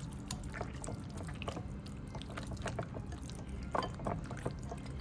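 A hand squeezing and turning raw chicken pieces in a bowl of soy-sauce and oyster-sauce marinade, making irregular short wet squishes.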